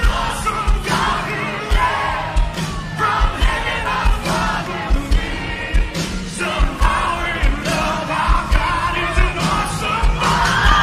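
Live worship music: a band with a steady drum beat, about two hits a second, with voices singing and a crowd shouting along.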